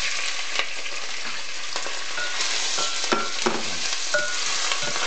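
Chopped pork sizzling in hot oil in a ceramic pot, freshly added, with a spatula knocking and scraping against the pot several times as it is stirred.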